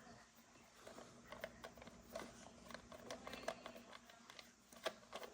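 Near silence, with faint scattered clicks and light rustling of a toy and its packaging being handled.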